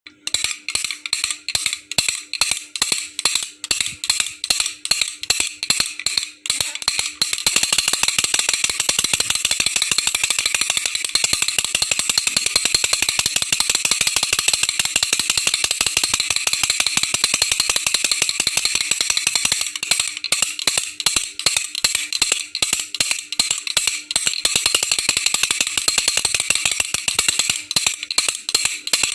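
Baby's toy rattle being shaken. It starts with separate shakes about four a second, turns into a fast continuous rattling about seven seconds in, and goes back to separate rhythmic shakes about twenty seconds in.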